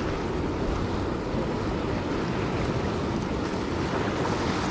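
Sea waves washing steadily, with wind noise on the microphone.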